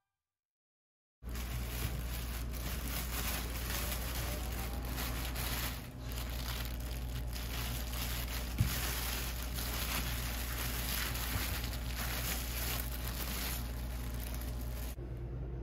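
Thin plastic bag crinkling and rustling as whole fish are pulled out of it onto a cutting board, starting abruptly about a second in, over a steady low hum, with one sharp knock partway through.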